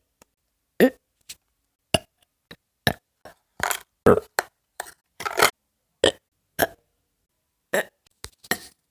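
A person burping over and over in a quick run of short burps with brief silent gaps between them, a few drawn out a little longer.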